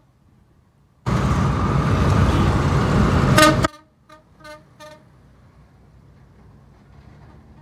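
Road traffic noise that cuts in and out abruptly, with short vehicle horn toots: a loud stretch of about two and a half seconds ends in a horn blast, followed by three quick toots, then faint background noise.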